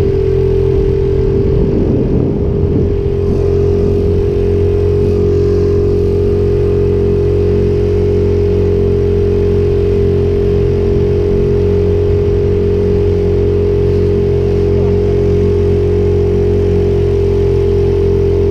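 Small tiller outboard motor running at a steady high speed, pushing a jon boat across the water, with one held pitch that does not change.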